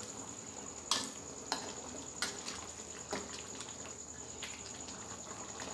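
A spatula stirring chicken curry in a metal wok: a soft wet stirring and simmering sound, with several sharp knocks as the spatula strikes the pan.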